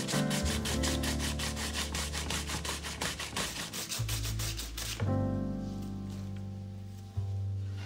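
A young zucchini rubbed back and forth over the metal blades of a flat plastic hand grater, an even rasping scrape about five strokes a second that stops about five seconds in. Background music runs underneath and carries on alone after the grating stops.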